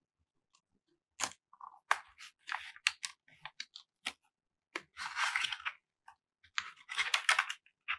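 Small retail earphone packaging being opened and handled by hand: scattered clicks and taps, then two longer rustling scrapes of the packaging, about five and seven seconds in.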